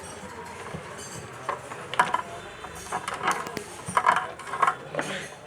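Tools and parts being handled on a repair bench: a string of small, sharp clicks and clinks, about half a dozen, as the technician gets ready to measure a speaker's voice coil with a meter.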